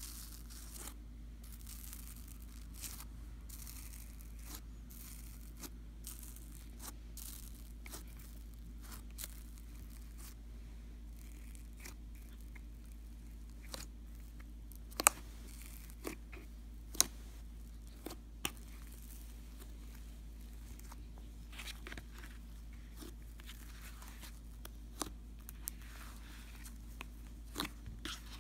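Fingers pressing and kneading bubbly slime in a plastic tub, giving irregular crackling clicks and pops, with a few sharper, louder pops around the middle and near the end, over a steady low hum.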